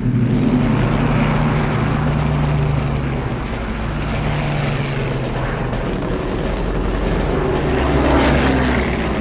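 Propeller-driven piston-engined fighter aircraft in flight, a loud steady engine drone that cuts in abruptly.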